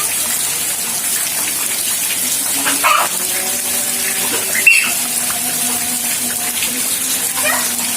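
Heavy rain pouring down steadily, with children's voices faintly in the background.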